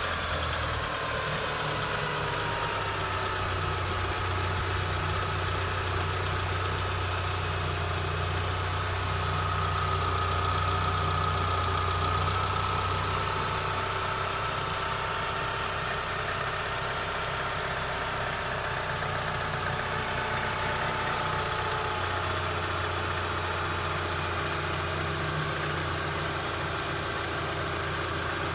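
2004 Mitsubishi Lancer Ralliart's 2.4-litre four-cylinder engine idling steadily, its pitch settling slightly lower in the first couple of seconds. It runs smoothly after a new timing belt, pulleys and hydraulic tensioner cured a strange engine noise.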